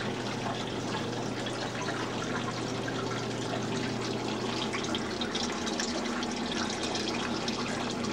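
Water running and splashing steadily in a tabletop model's fountain, with a low steady hum beneath.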